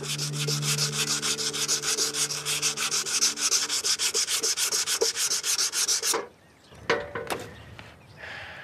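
Fast, even back-and-forth rubbing strokes, about six a second, of hand abrasion on a motorcycle part as it is being worked over. The rubbing stops abruptly about six seconds in, followed by a couple of light knocks.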